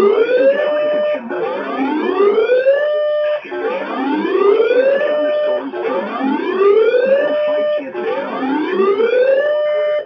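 Repeated rising whooping tones like a siren, each glide climbing and then holding its pitch, about one a second, with several overlapping at different pitches.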